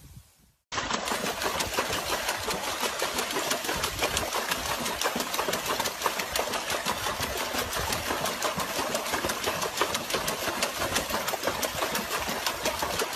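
A small motor running steadily with water churning and bubbling in a plastic tub whipped into foam. It starts abruptly less than a second in.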